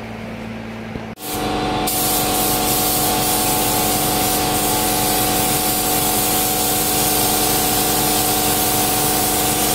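Automotive paint spray gun spraying black acrylic sealer onto a plastic bumper cover. It starts abruptly about a second in and then runs as a loud, steady hiss with a steady hum of several tones under it.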